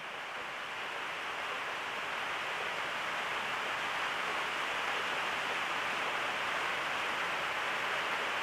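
Steady background hiss, an even noise with no other events in it.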